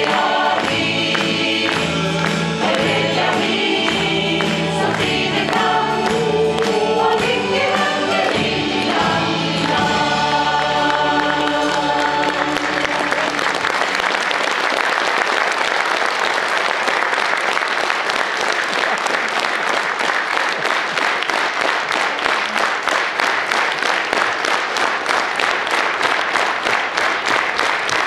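Mixed choir of men, women and children singing a Norwegian Christmas song with instrumental accompaniment, ending on a held chord about thirteen seconds in. Then steady applause, with the choir clapping along.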